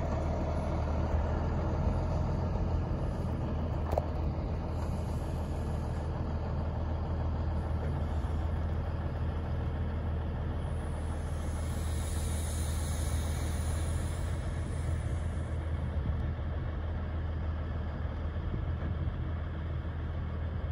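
Heavy diesel engine running steadily at low speed, a deep even hum. There is one sharp click about four seconds in, and a soft hiss swells and fades in the middle.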